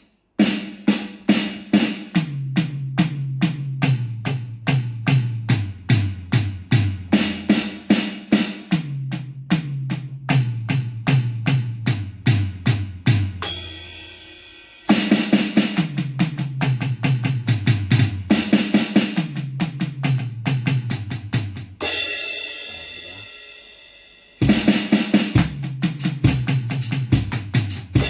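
CPD 1000 portable electronic drum kit played through a guitar amplifier: fast runs of hits on the snare and the toms, each run stepping down in pitch, with a cymbal crash ringing out twice, about halfway through and again near the end.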